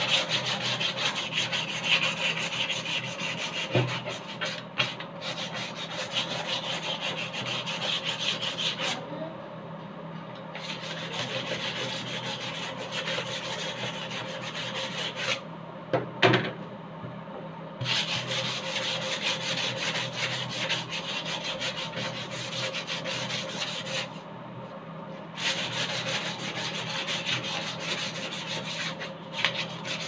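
Sandpaper rubbed back and forth along the edges of PVC fan blades, smoothing the rough cut edges. The scratching comes in runs of several seconds with short pauses, and there are a couple of sharp knocks, near 4 s and 16 s.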